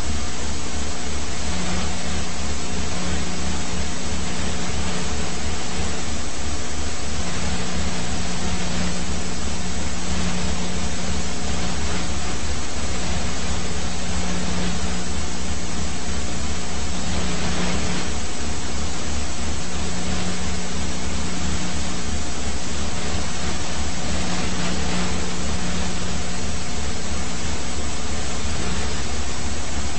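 Police helicopter noise, heard over the aircraft's camera or intercom audio: a steady rush of turbine and rotor noise with a fast low pulsing from the rotor blades.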